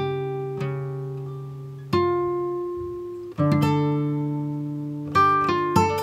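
Background music on a plucked guitar: chords struck every second or two, each left to ring and fade, with quicker notes near the end.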